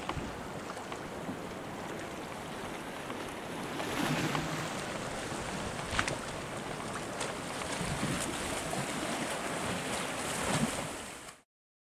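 Sea waves washing against the rocks, with wind on the microphone and a few light knocks. It cuts off suddenly near the end.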